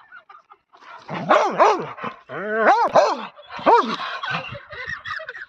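Dog barking: a quick run of about half a dozen loud barks starting about a second in, with a few fainter barks after.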